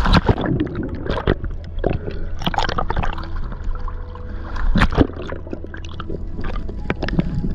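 Seawater splashing and gurgling as the microphone plunges through the sea surface. A loud burst of splashing comes at the start, then irregular gurgles and splashes follow, with a strong one about five seconds in.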